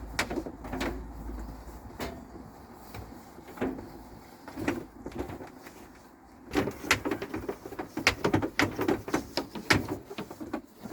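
Irregular clicks and knocks of a thick cable being fed and drawn through the boat's fittings, a few at first and coming thick and fast for the last few seconds.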